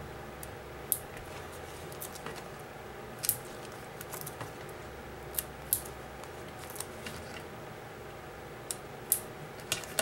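Small craft scissors snipping foam adhesive dimensionals at a desk: a few short, crisp snips scattered irregularly, over a faint steady hum.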